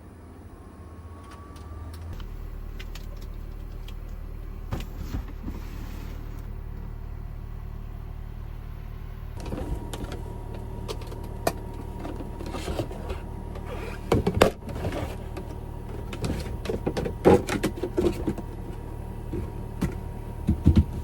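A steady low mechanical hum steps up about two seconds in and keeps running. From about halfway, many sharp clicks and knocks are heard as objects are handled, a few of them loud.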